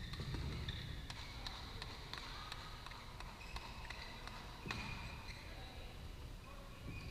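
Badminton rackets striking shuttlecocks in rallies on several courts of a large hall: sharp, irregularly spaced pops, with short high squeaks of players' shoes on the court mats.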